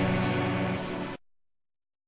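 News channel intro music: a sustained chord over a wash of sound, fading and then cutting off abruptly about a second in, leaving dead silence.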